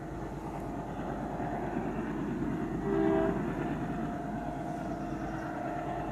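WDM-3D ALCO diesel locomotive running under power with its engine chugging, getting a little louder, and a short horn blast about three seconds in.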